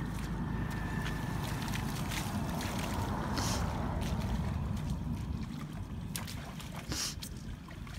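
Low, gusty wind rumble on the microphone, with a few short high chirps about three and a half and seven seconds in.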